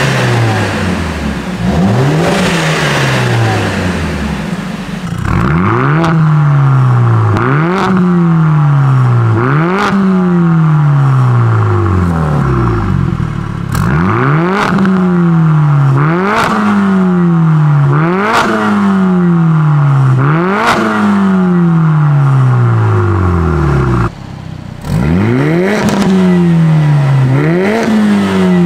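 Mercedes-AMG CLA45 S's turbocharged 2.0-litre four-cylinder revved in repeated blips, about one every two seconds, each climbing quickly and falling away. It is first heard through the stock exhaust. About five seconds in it switches to a Fi valvetronic catback with catless downpipes, which is louder and crackles and pops as the revs drop.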